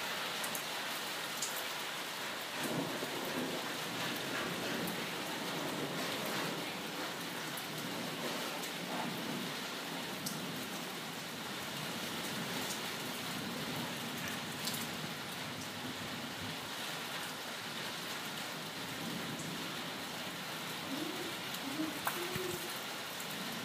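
Steady rain during a night thunderstorm, with scattered sharp drips striking nearby surfaces and low rumbles of thunder at times.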